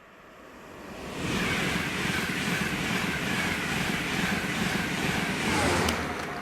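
Train passing at speed on the main line: the noise builds quickly, holds loud for about five seconds of wheel and rail noise with a faint even beat, then drops in pitch near the end as it goes by and fades.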